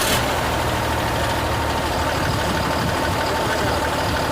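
Cummins diesel engine of a Tata BS4 tipper truck running steadily just after starting, a low drone with a steady high tone above it.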